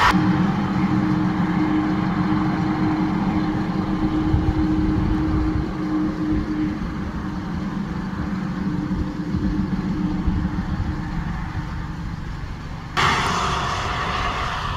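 Steady road noise of a car driving on a highway: a low hum with tyre noise and a faint steady engine drone. About 13 s in it changes abruptly to a brighter, hissier rush.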